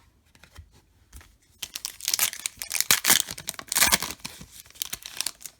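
Foil wrapper of a baseball card pack being torn open and crinkled, a dense crackling that starts about a second and a half in and stops just before the end.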